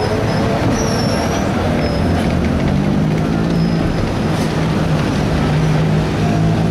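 A PCC streetcar passing close by on its rails, running with a loud, steady rumble and a few brief high squeals. A steady low hum joins about two and a half seconds in.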